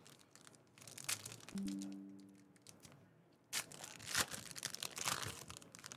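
A 2018 Panini Select football card pack's wrapper being torn open and crinkled, in two spells of crackling, with a short steady low hum about one and a half seconds in.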